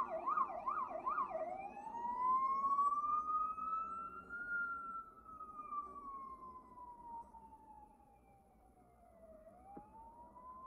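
Police siren in a fast yelp that switches, about a second and a half in, to a slow wail rising and falling over several seconds. It grows faint near the end, then rises again.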